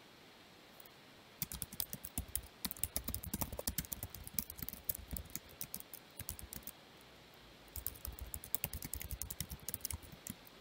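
Typing on a computer keyboard: rapid runs of keystrokes that begin about a second and a half in, pause briefly about two-thirds of the way through, then start again.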